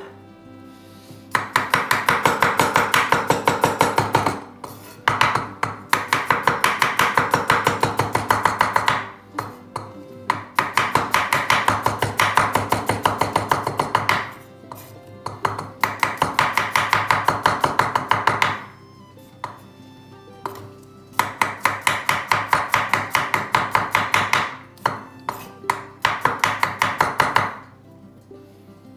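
Chef's knife chopping garlic cloves on a wooden cutting board: fast, even strokes of the blade knocking the board, in several runs of a few seconds each with short pauses between.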